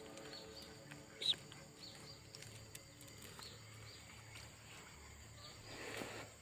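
Faint, short, high-pitched bird chirps repeating every half second or so, one louder call about a second in, over quiet open-air background. A rustling noise builds near the end.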